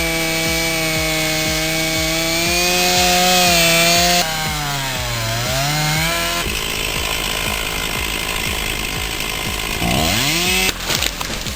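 Two-stroke chainsaw running at high revs and cutting wood. About five seconds in its pitch sags and then climbs back as the chain loads up in the cut, and the engine note swoops again near the end. The sound changes abruptly several times.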